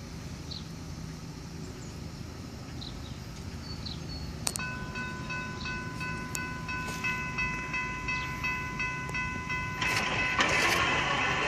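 Norfolk Southern diesel freight train approaching, its low rumble growing steadily louder. About four and a half seconds in, a high ringing warning signal starts abruptly and pulses several times a second. Near the end the train noise swells sharply as it draws close.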